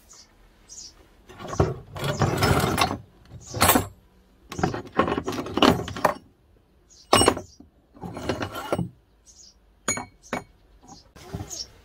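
Rusty steel scrap clattering and scraping as a hand rummages through a pile of old tools and bearing parts and picks out an old drill bit; several bouts of clanking, then two sharp ringing clinks near the end.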